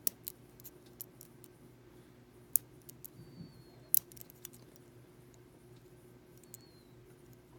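Lock pick and tension wrench working the pin tumblers of an Ace A527 hardened-steel padlock: scattered small irregular clicks of the pins, with two louder clicks about two and a half and four seconds in, over a faint steady hum.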